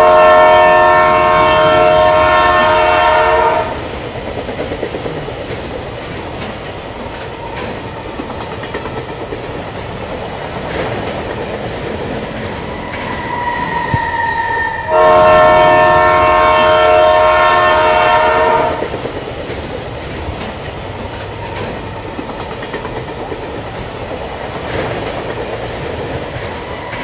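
A train horn sounds two long blasts of several tones together, each about three and a half seconds, some fifteen seconds apart, over the steady rumble of a train running on the rails.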